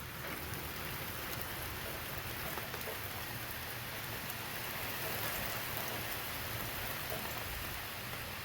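Steady hiss of falling rain, with faint patter of drops, swelling slightly midway.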